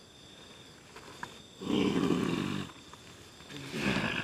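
A person's low, rough growling groans: a drawn-out one about a second and a half in and another near the end.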